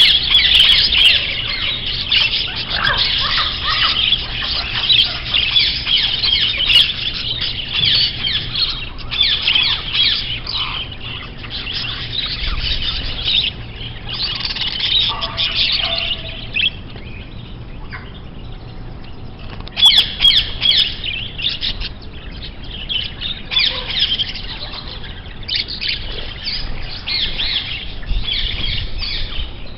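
Birds chirping and squawking in dense, overlapping bursts of high twittering, with a short lull a little past the middle.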